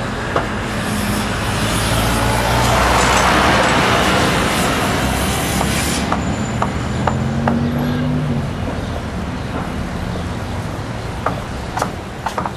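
Construction site ambience: a heavy engine runs steadily under a broad rushing noise that swells and cuts off suddenly about six seconds in. Scattered sharp knocks sound throughout, and the engine briefly rises in pitch a little after seven seconds.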